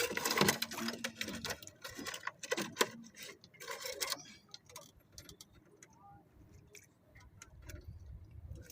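Irregular light clicks and ticks, thick in the first few seconds and then sparser, with a faint low rumble coming up near the end.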